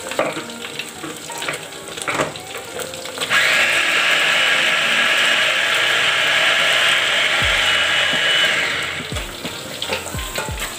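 Cheap electric mini chopper running for about five seconds, starting about three seconds in, its blades grinding chilies and spices into sambal paste, with a steady buzzing like a wood-cutting machine. Clicks of the plastic lid and bowl being handled come before it.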